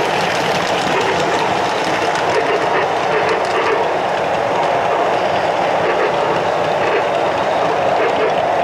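O scale two-rail model train running along the track, picked up close by a camera riding on the train: a steady rolling rumble of wheels on rail and drive noise, with faint light clicks.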